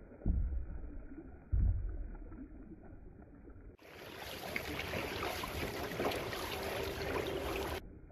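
Dragon boat paddles splashing in the water as the crew strokes, with two low thumps in the first two seconds; the splashing turns louder and clearer from about four seconds in until just before the end.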